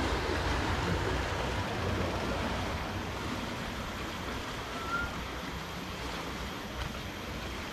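Steady rushing wind noise on an action camera's microphone during a mountain bike ride, heaviest in the low end and easing off slightly. A brief faint squeak about five seconds in.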